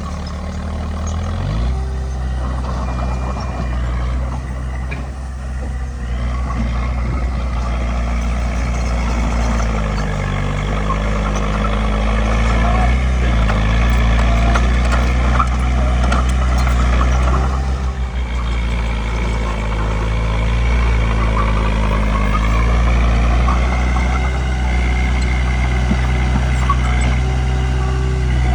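Bulldozer's diesel engine running loudly and steadily, its pitch rising shortly after the start and dipping and recovering a couple of times as the load changes.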